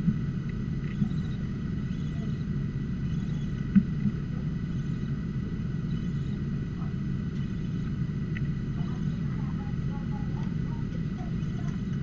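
Steady low rumble and hum from the nest-box camera's microphone, with a few short knocks in the first few seconds, the loudest about four seconds in.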